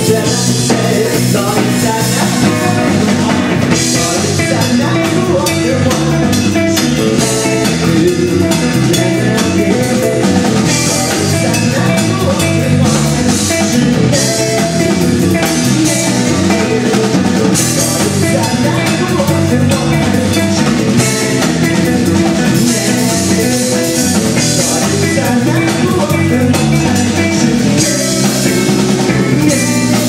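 Live rock band playing a song: drum kit, electric guitar and a male singer, loud and steady throughout.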